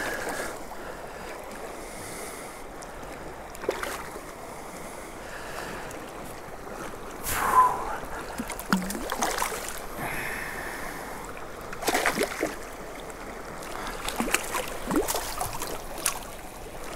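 River current flowing steadily, with several short splashes as a hooked rainbow trout thrashes at the surface while being brought to the net.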